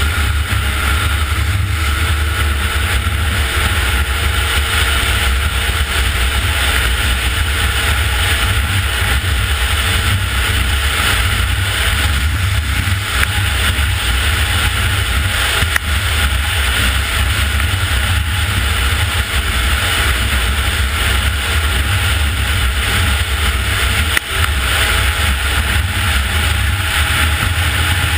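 Snowmobile engine running steadily at speed, with a strong low rush of wind over the microphone.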